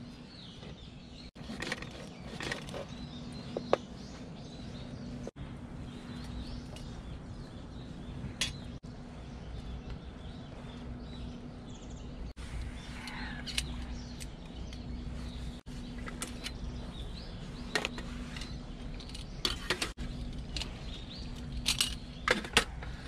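Scattered light clicks and taps of a knife on a wooden cutting board and of metal camp pans being handled, over a steady low outdoor background. Near the end come a few sharper clicks as a gas canister is fitted to a small camping stove.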